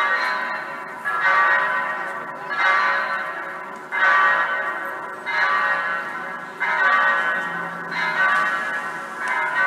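Electronic church bells, simulated bell sounds played through loudspeakers, ringing in a steady run of strokes about every second and a half, each stroke dying away before the next.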